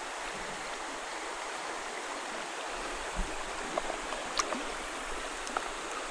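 Steady rush of shallow river current over a rocky bottom, with a low dull thump about three seconds in and a few faint ticks and splashes as a hand holds a smallmouth bass in the water for release.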